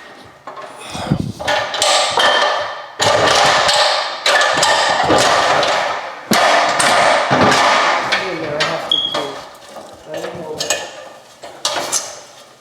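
Plastic housing of a hardwired ceiling smoke detector scraping, clicking and clattering as it is twisted and worked off its mounting base. One short high beep about nine seconds in fits the detector's low-battery chirp.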